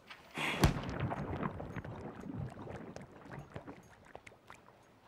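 A sudden rush of flapping cloth as a shirt is flung off, with a sharp hit about half a second in, then rustling and scattered small clicks that fade away over about three seconds.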